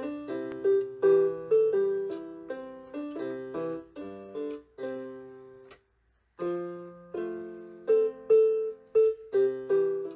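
Piano music: struck chords and a melody, breaking off briefly about six seconds in and then resuming.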